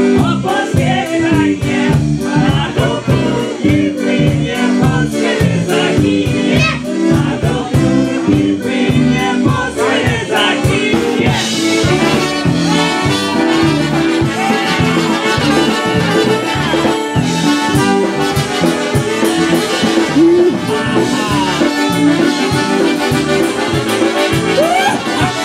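Live polka band playing an instrumental passage with no lyrics sung: accordion over bass guitar and drum kit, with a steady beat.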